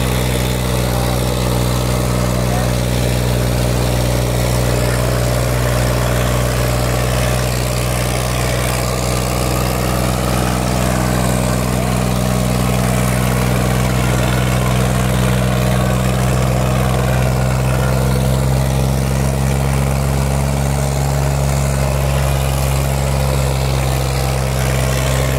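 Sonalika 50 tractor's diesel engine held at constant high revs while straining to pull a harrow, its exhaust pouring black smoke; one steady engine note with no change in pitch.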